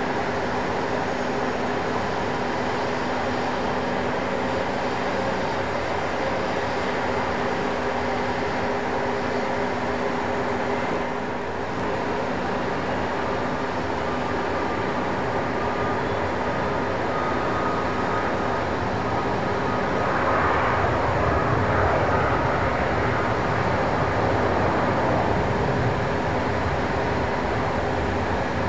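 Airbus A220-300's Pratt & Whitney PW1500G geared turbofans running at low taxi thrust: a steady jet rush with a whine of several held tones, growing a little louder about twenty seconds in.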